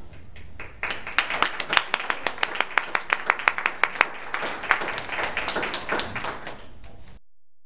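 Audience applauding, with a few loud claps close by standing out from the rest. The applause starts a second in and breaks off suddenly near the end.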